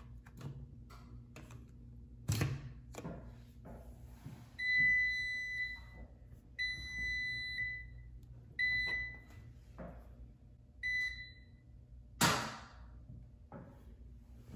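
Speed Queen commercial washer's control panel beeping four times as it is set, each beep a single steady tone, the first two about a second long and the last two shorter. Scattered clicks and knocks sound between them, with a sharper thunk near the end.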